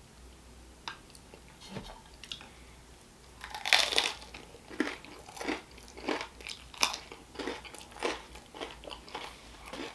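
Close-miked bite into a slice of shepherd's pizza about three and a half seconds in, followed by steady crunchy chewing, a crunch a little under every second.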